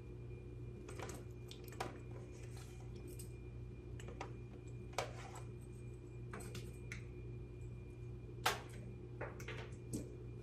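Scattered light clicks, taps and knocks of a PC being handled and its cables plugged in, with a sharper knock about eight and a half seconds in. A steady low hum runs underneath.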